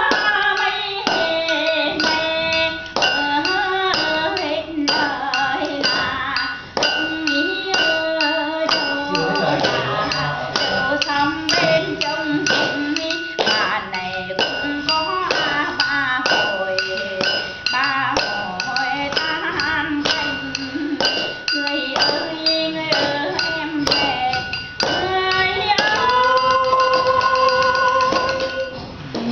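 A woman singing a Vietnamese folk song in wavering, ornamented notes over a steady beat of taps keeping time, ending on a long held note near the end.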